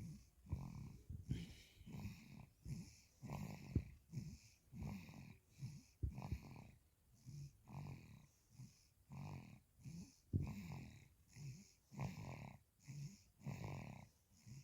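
Faint snoring in a quick, even rhythm, nearly two snoring breaths a second, each a low rasp with a breathy hiss.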